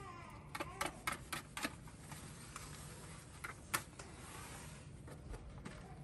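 A handheld utility lighter clicking as it is tried again and again to light a cold grill: a quick run of sharp, irregular clicks over the first couple of seconds, then a few more, the loudest near four seconds in.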